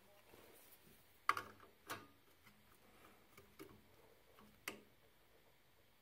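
An open-end wrench clicking and tapping against the pilot gas tube fitting on a boiler's gas valve as it is set on the nut: a few sharp separate clicks, the loudest about a second in and another near five seconds, with smaller ticks between.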